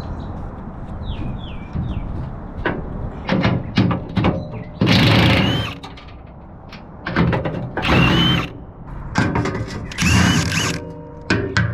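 Handheld power tool run three times in bursts of about a second, each ending in a rising whine, with metal knocks and tool clicks in between.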